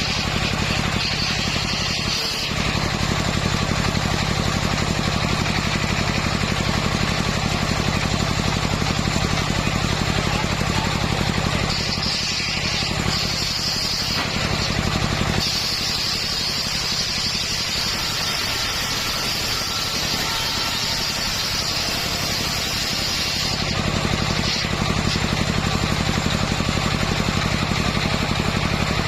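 Engine of a mobile circular-blade sawmill running steadily. A high whine comes and goes over it and is strongest for several seconds in the middle.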